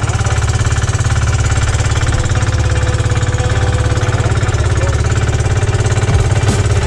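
Outrigger fishing boat's engine running steadily under way, a loud, fast, even pulsing.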